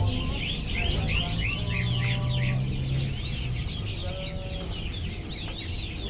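Fischer's lovebird chattering continuously: a fast, unbroken stream of short, high chirps and squeaky sweeps.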